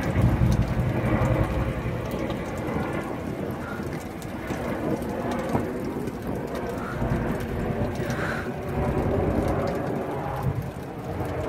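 Boeing CH-47 Chinook tandem-rotor helicopter passing overhead: a steady, low rumble of rotors and turbines, mixed with rain falling.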